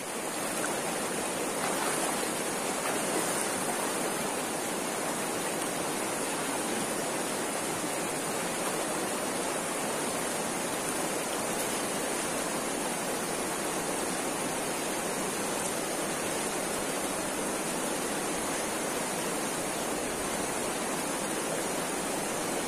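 Shallow, rocky river flowing steadily over stones: an even, unbroken water rush.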